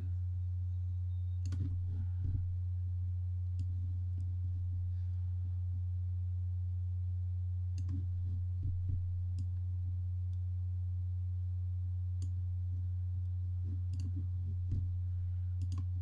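Steady low electrical hum, with scattered faint clicks of a computer pointing device as lines are drawn on a diagram.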